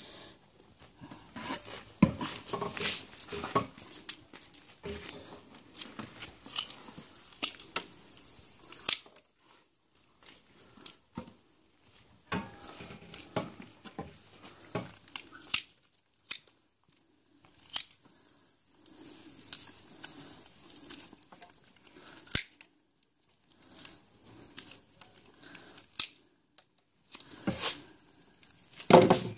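Hoof shears snipping at a goat's cloven hoof during trimming: irregular sharp clicks and crackling cuts, the loudest few near the end.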